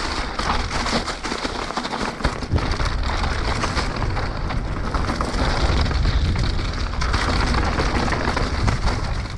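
Mountain bike rattling and clattering hard as it rides over rough trail: a dense, continuous stream of clicks and knocks over a steady low rumble.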